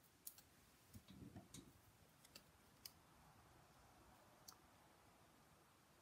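Faint scattered clicks and paper handling as the backing paper is peeled off foam adhesive dimensionals and a cardstock piece is pressed into place; about six small clicks in the first four and a half seconds, otherwise near silence.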